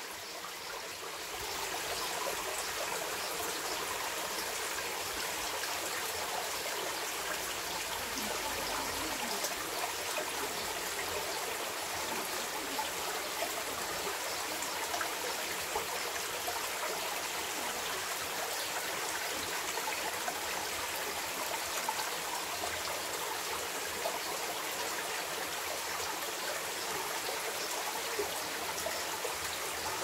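Shallow stream trickling over rocks and stones, a steady babble of running water that grows slightly louder about a second and a half in.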